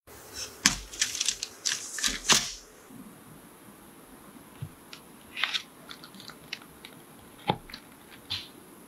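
A knife cutting through a cheesecake and its biscuit-crumb crust. A dense run of crackles and clicks fills the first two and a half seconds, followed by a few sparser crunches and sharp taps as the blade goes through the crust and meets the board.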